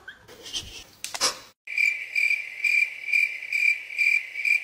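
High-pitched chirping in a steady rhythm of about two chirps a second, like a cricket, starting abruptly about one and a half seconds in after a brief click.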